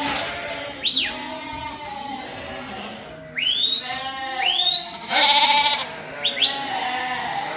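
A penned mob of sheep bleating, with many calls overlapping, some of them high and sharp. A brief harsh noise comes about five seconds in.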